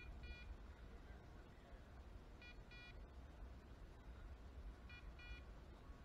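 Faint electronic double beeps from a bird dog's point-alert beeper, repeating about every two and a half seconds, the signal that the dog is holding on point. Under it runs a low rumble of wind and handling on the microphone.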